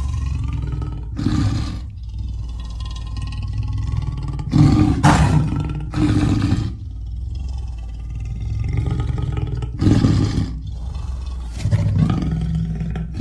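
Amur leopard growling: a string of loud, rough bursts at irregular gaps of one to four seconds, over a steady low hum.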